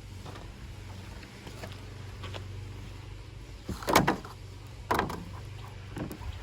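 A few sharp plastic and metal clicks and clunks from a windshield wiper arm and blade being handled, about a second apart in the second half, over a steady low hum.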